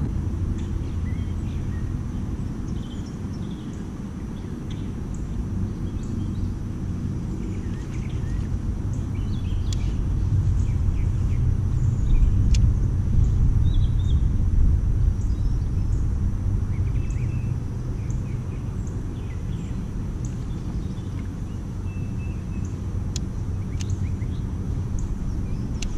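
Steady low wind rumble on the microphone, louder around the middle, with faint scattered bird chirps and a few small clicks.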